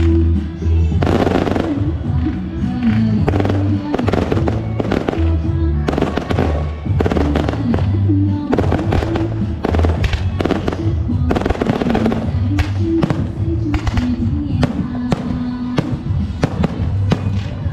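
Fireworks and firecrackers going off in a dense run of sharp bangs, several to a second at times, over loud music with a heavy bass beat.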